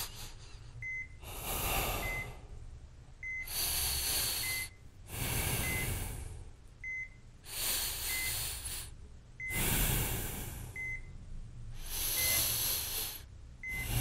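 Hospital patient monitor giving a short high beep about once a second, over heavy, rasping breaths that come every couple of seconds, typical of a patient's laboured breathing.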